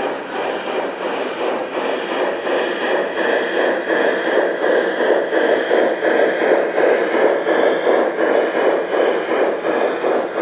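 Garden-scale model Br 99 steam tank locomotive running past with its train, giving an even, quick chuffing beat over the rolling of the wheels on the track. It grows a little louder as the locomotive draws near.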